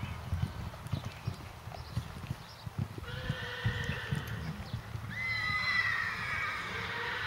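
A horse's hooves thudding on a sand arena at the canter. From about three seconds in, a higher drawn-out sound joins them, its pitch sliding near the five-second mark.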